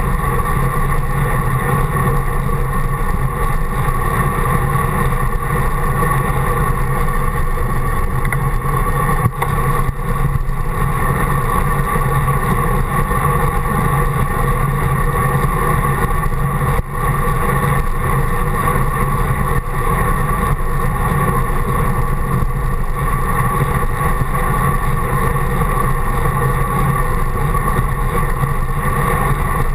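Wind rushing over a handlebar-mounted camera on a moving bicycle: a steady, loud noise with constant hum-like tones through it, dipping briefly a couple of times.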